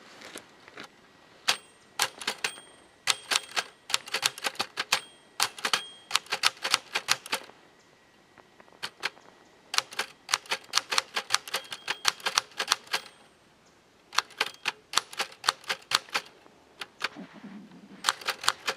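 Typewriter keys striking in quick runs of sharp clacks, in three or four bursts with short pauses between them.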